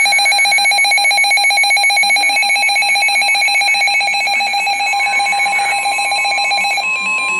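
Emergency Alert System attention signal: a loud, steady two-tone alert tone with a fast warble that stops suddenly about seven seconds in. A fainter single steady tone joins about five seconds in and carries on past the end.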